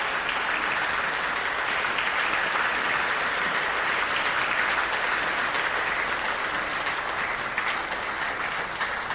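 Theater audience applauding steadily, tapering off slightly near the end.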